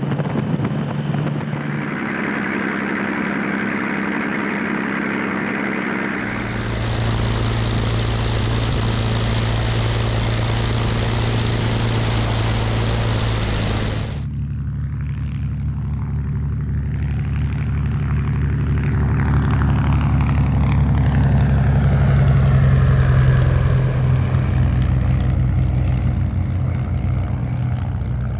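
Piston engines and propellers of WWI biplanes running steadily in flight, the sound changing abruptly twice as the perspective cuts. In the last part, a biplane passes overhead, growing louder to a peak a little past two-thirds of the way through and then fading.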